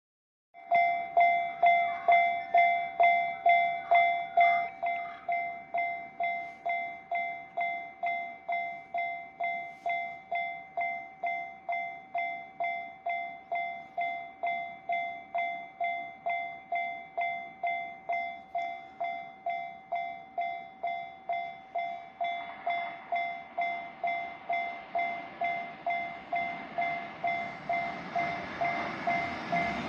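Japanese level-crossing warning alarm starting suddenly and ringing in even electronic pulses about twice a second, louder for the first few seconds. Over the last several seconds the rumble of an approaching freight train rises under it.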